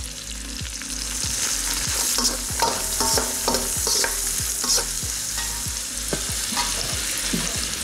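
Spices, onion and dried chillies sizzling in hot oil in a stainless-steel kadai as a perforated steel ladle stirs them, with repeated clinks and scrapes of metal on the pan. These are the masala ingredients being fried before they are ground.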